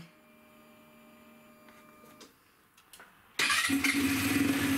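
Peugeot Speedfight 4 scooter: a faint steady hum for about two seconds after the ignition comes on, a couple of small clicks, then the engine starts about three and a half seconds in and idles steadily. It sounds a little throaty because the air filter is not fitted.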